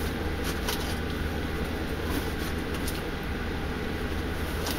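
Steady low rumble of strong wind around the workshop, with a few faint clicks.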